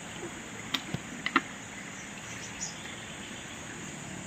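Steady chorus of crickets and other insects. A few sharp knocks come about a second in.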